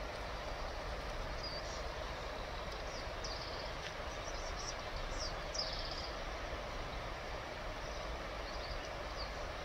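Steady outdoor background noise with a low rumble, and short high bird chirps now and then, the clearest about five and a half seconds in.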